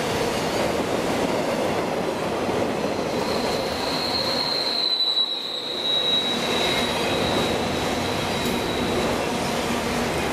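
CSX freight train of autorack cars rolling past close by: a steady rumble of wheels on rail. A thin, high wheel squeal comes in about three seconds in and fades out near the end.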